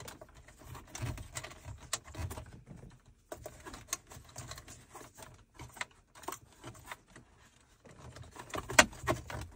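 Scattered light clicks, taps and rustles of hands working a charging cable through a car's plastic centre-console trim, with a sharper click near the end.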